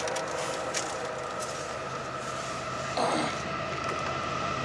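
Distant train horn fading away, its steady tones hanging on faintly. A short, sudden noise comes about three seconds in.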